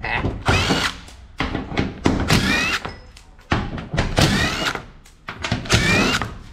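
Cordless 20-volt power driver with a long socket extension backing out body-panel bolts on a race car, one bolt after another. It makes four short runs, each a whine rising in pitch, with short pauses between them.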